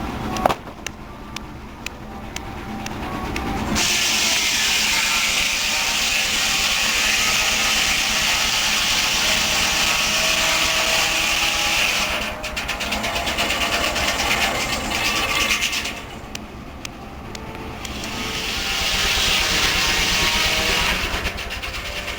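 Steam-powered sawmill at work: a steam traction engine runs steadily with a pulsing low chug, driving the mill by belt. Three long stretches of loud hissing noise come over it, the first about four seconds in and lasting some eight seconds, then two shorter ones.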